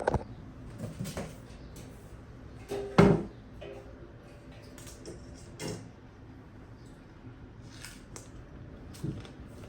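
Scattered light clicks and knocks of small objects being handled, with one louder knock about three seconds in.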